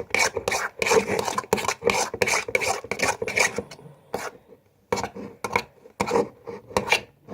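Spoon stirring and scraping a thick slime mixture of glue and shaving foam around a plate: fast, rough, irregular scraping strokes, with a short break about four seconds in.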